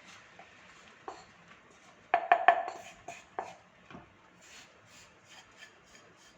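Kitchen utensils clattering: a spoon knocking and scraping against a metal pan and bowl, with a quick run of loud strikes about two seconds in that ring briefly, then lighter taps and scraping.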